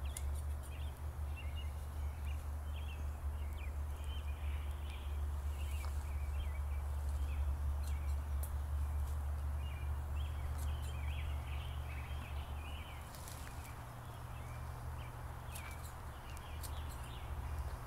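Small birds chirping and twittering on and off over a steady low rumble, with a few faint clicks.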